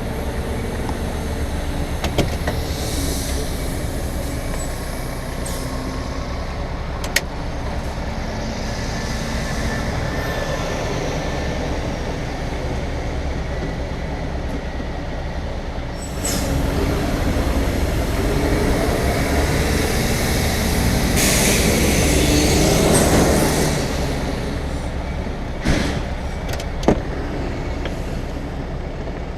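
Heavy goods vehicle's diesel engine running with a steady low drone and a few sharp clicks. It grows louder about halfway through, and a hiss of air sounds for a few seconds about three-quarters of the way in.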